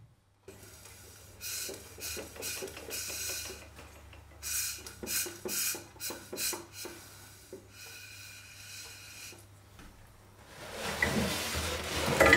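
Metal parts of a homemade rotary valve engine being handled: irregular scraping, rubbing and clicking, louder and rougher near the end.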